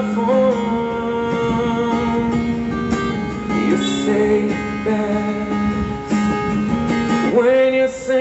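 A love song with strummed acoustic guitar and singing, played loud through the built-in speakers of a laptop cooling pad.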